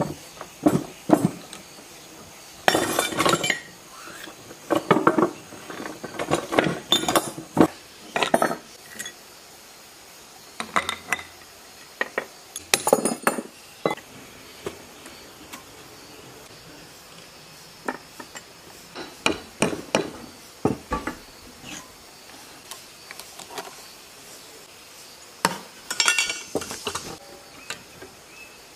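Wrenches and loose metal parts clinking and clanking against a small diesel engine's casing as it is taken apart by hand, in irregular clusters of knocks and rattles with short gaps between.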